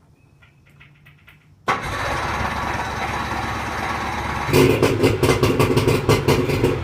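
Boat motor started with the key: it catches suddenly a little under two seconds in and runs steadily, then turns to a fast, rough pulsing, about five beats a second, for the last couple of seconds. The boat is out of the water, so the motor is only run briefly.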